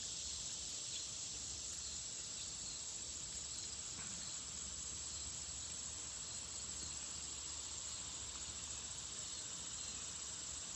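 A steady chorus of insects singing outdoors: a continuous high-pitched trill that holds unchanged throughout.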